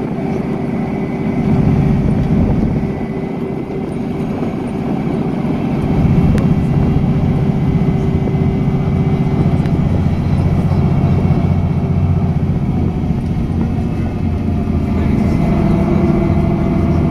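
Bus engine and tyre noise heard from inside the cabin while cruising on a motorway: a steady low hum with road rumble, growing louder about six seconds in.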